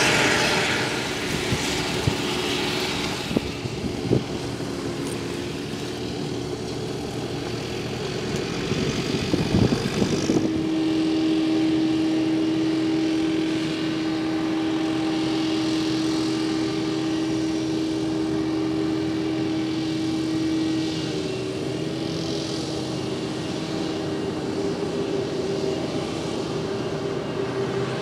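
Krone Big X 700 self-propelled forage harvester chopping maize, with a tractor running alongside: a steady engine and machinery hum, a few sharp ticks near the start and a rougher loud patch just before ten seconds in. From about ten seconds in a steady high whine sits over the engine to the end.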